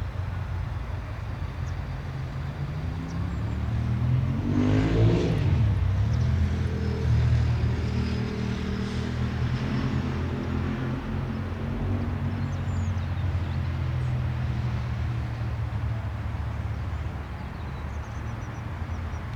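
Airbus A319 airliner's jet engines at takeoff thrust, growing louder as the aircraft passes, at its closest about five seconds in, then running on steadily and easing off slightly near the end.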